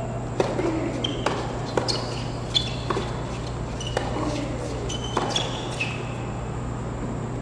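Tennis doubles rally on a hard court: a string of sharp racquet-on-ball hits and ball bounces, roughly one every half second to a second, with short high squeaks of tennis shoes on the court between them, over a steady low hum.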